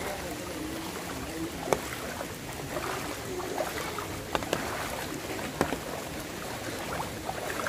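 Floodwater sloshing and splashing as people wade through a flooded lane, a steady watery rush broken by a few sharp splashes.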